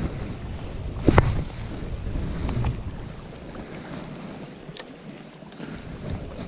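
Wind buffeting the microphone over calm sea washing around rocks, with a brief swish about a second in as a spinning rod is cast; the wind rumble eases after the middle.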